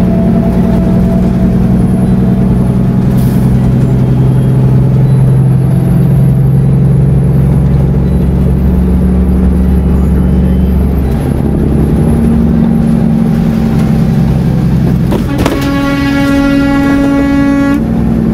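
Steady engine and road drone of a car driving at highway speed, heard from inside the cabin, its pitch shifting slightly about eleven seconds in. Near the end a horn sounds once for about two seconds.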